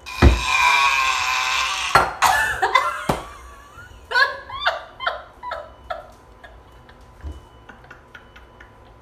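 A thud, then a woman lets out a long, loud, wavering vocal cry for about two seconds, with a couple more knocks after it. Bursts of laughter follow around the middle.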